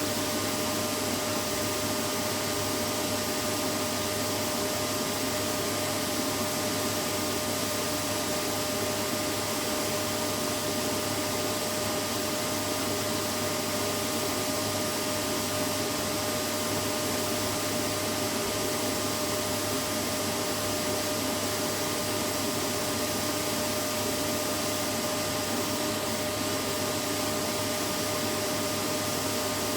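Vacuum cleaner running steadily, a constant rushing of air with a steady motor whine, no change in pitch or level.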